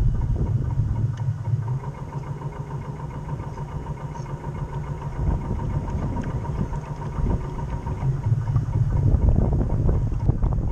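Onboard sound of a model boat under way: a steady low rumble from its drive and the water at the hull, with a thin steady whine through the middle of the stretch.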